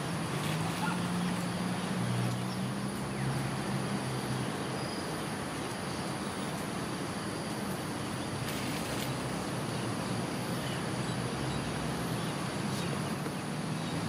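Outdoor ambience: a steady low hum of distant motor traffic, with a continuous high-pitched insect drone above it.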